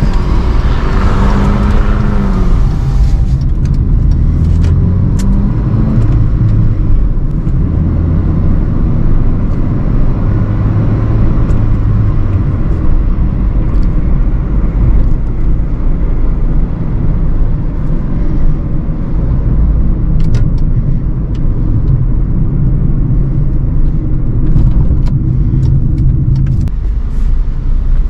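Cabin noise of a 2009 Hyundai i20 on the move: a heavy low road and tyre rumble with its 1.25-litre petrol engine running, its pitch dipping and rising in the first few seconds and then settling under the rumble. Scattered light clicks and rattles come through now and then.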